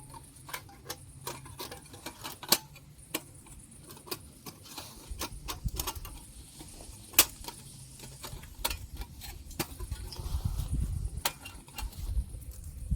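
Wood fire crackling: irregular sharp snaps and pops of burning twigs, with a low rumble coming in about five seconds in.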